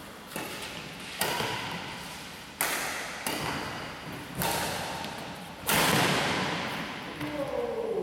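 Badminton rackets striking a shuttlecock in a doubles rally: about six sharp hits at uneven intervals roughly a second apart, the hardest about three-quarters through, each echoing in a large hall.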